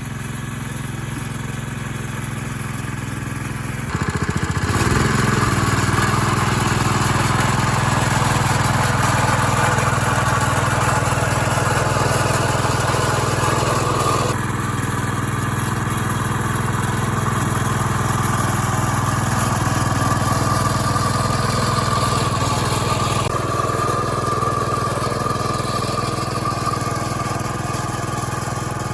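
Engine running steadily. About four seconds in it speeds up and holds the higher speed, then eases back slightly around fourteen seconds in.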